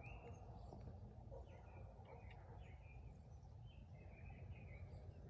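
Near silence: faint background hum with a few faint, short bird chirps now and then.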